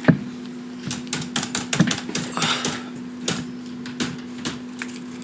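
Irregular light clicks and taps, one sharper knock at the start, over a steady low electrical hum.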